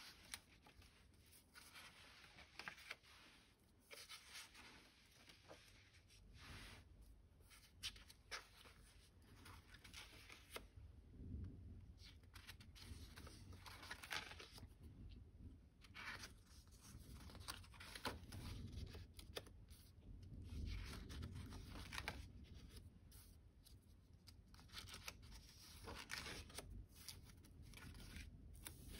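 Faint paper rustling and crinkling as the pages of a spiral-bound sketchbook are turned by hand and the loose paper pieces stuck inside are lifted, with occasional soft taps and scrapes.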